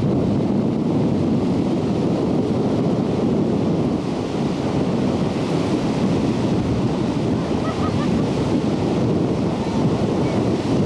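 Wind buffeting the microphone over ocean surf breaking on a rocky shore: a loud, steady low rush with no breaks.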